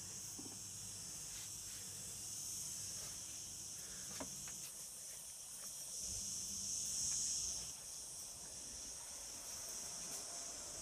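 Cicadas buzzing in a steady, high-pitched drone that swells about six seconds in and eases back a little before eight seconds. A faint low hum fades out in the first second.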